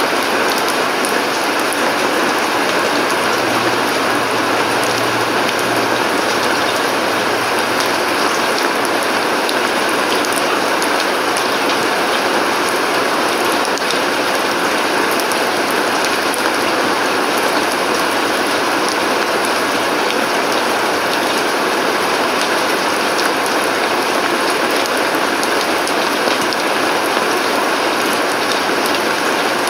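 Steady rain falling on a concrete courtyard and garden, an even hiss of dense drops that neither builds nor eases.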